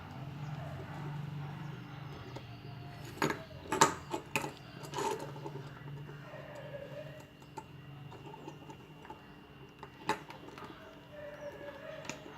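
Sharp clicks and metallic clinks of wires, screws and a screwdriver being handled while a switch is wired, in a cluster about three to five seconds in and once more around ten seconds, over a low steady hum.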